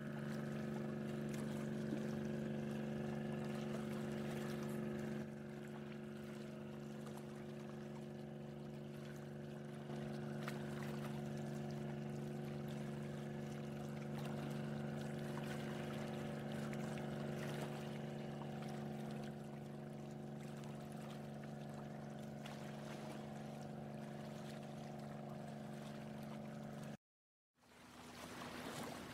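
Boat motor running steadily, a constant multi-tone hum with faint ticks over it. It cuts off abruptly near the end, and after a brief gap a lower hum with a hiss fades in.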